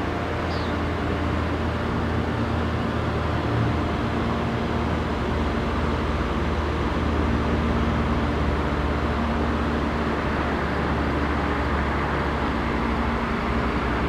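Steady roadway traffic noise, an even rumble with a low hum underneath and no distinct passing vehicle.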